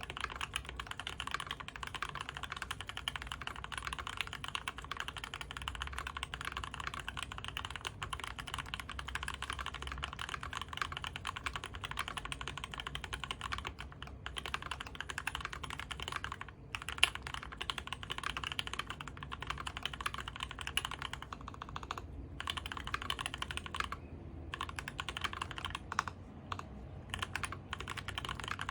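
Fast, continuous typing on a custom Whale 75 mechanical keyboard with a brass plate, Krytox-lubed U4T tactile switches and GMK keycaps: a dense run of key clacks with a few brief pauses. One sharper, louder keystroke comes about 17 seconds in.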